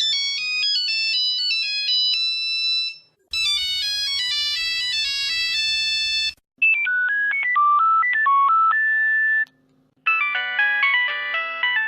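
Nokia mobile phone ringtones played one after another: four different short electronic melodies of about three seconds each, separated by brief pauses. The second has a low buzz under it.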